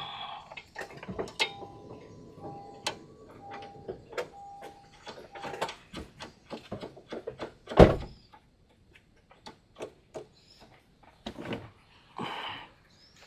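Scattered metallic clicks and knocks of hand tools and suspension parts while a new front sway bar end link is fitted. One heavy knock stands out about eight seconds in, and a faint short tone repeats during the first half.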